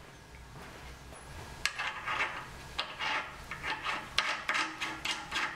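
Hand socket ratchet clicking in short raspy bursts as a nut is run down onto the top triple clamp of the motorcycle's steering head, starting about a second and a half in and repeating several times a second.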